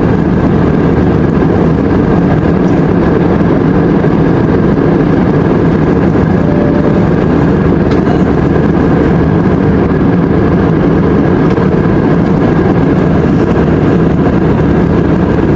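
Airliner cabin noise in flight: a loud, steady roar with a faint high steady tone running through it.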